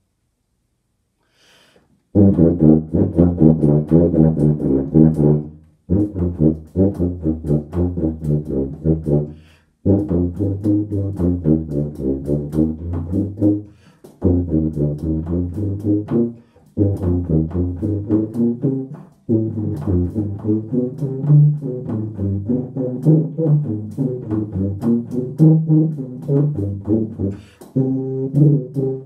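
Solo tuba playing a passage of many short, separately tongued low notes, starting about two seconds in and grouped in phrases with brief breaks between them.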